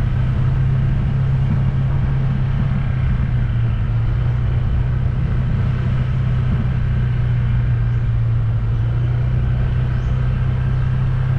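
Vehicle on the move at a steady speed: a constant low engine hum with road noise, holding even throughout.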